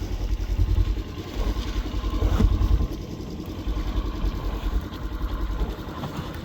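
Engine of a farm vehicle running with a steady low rumble that swells louder twice, about half a second in and again around two to three seconds in.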